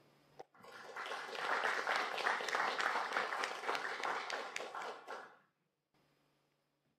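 Audience applauding, a dense patter of many hands that swells over the first second and cuts off suddenly about five and a half seconds in.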